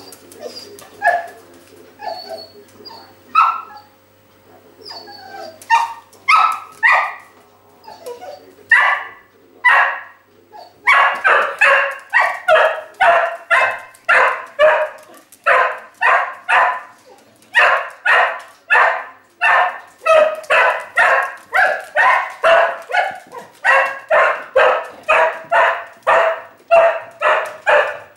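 A dog barking: scattered single barks at first, then, about eleven seconds in, a steady run of barks at about two a second.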